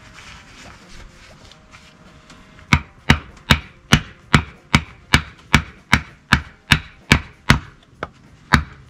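Steel-headed hammer knocking on the end of a wooden stool leg, driving it into a hole bored in a half log. A steady run of sharp knocks, about two and a half a second, begins about three seconds in.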